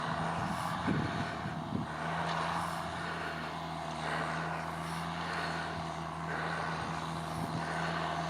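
John Deere 6810 tractor's six-cylinder diesel engine running steadily while pulling a three-furrow plough.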